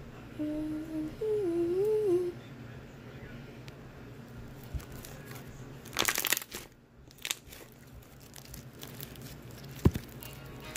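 Slime squeezed and pulled between fingers, giving a loud crackly squelch about six seconds in, then faint crackles and one sharp click near the end. Near the start a voice hums a short wavering tune for about two seconds.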